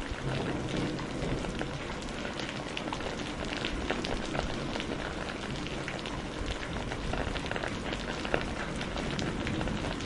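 Heavy rain falling steadily, a dense hiss of many drops striking close by, with one sharper drop hit a little past eight seconds.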